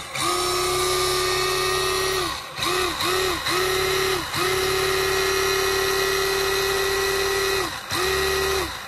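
Losi Mini-T 2.0's stock brushed electric motor and drivetrain whining as the throttle is blipped, in several bursts that each spin up and wind down. There are three short blips in quick succession about three seconds in, between longer steady runs.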